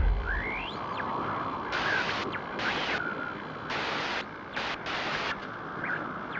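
GoPro logo intro sound effect: a steady hiss of static, broken by several sharp bursts of glitchy noise and a few quick whistling sweeps. It opens on the fading rumble of a deep boom.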